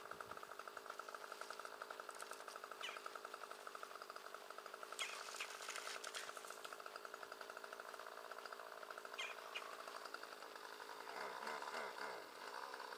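Two-stroke chainsaw engine idling steadily, with a fast even pulse, then revved up and down a couple of seconds before the end.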